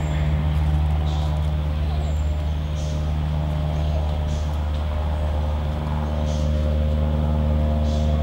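A chicken sneezing: about five short, sharp sneezes roughly every one and a half seconds, over a loud steady low machine hum.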